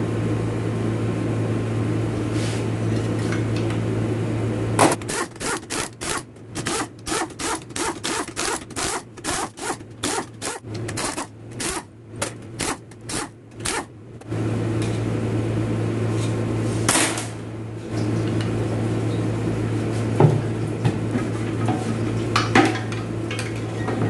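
Hand-tool work on transmission parts: a run of about twenty-five short, even scraping strokes, about three a second, over a steady low hum that drops out while they last.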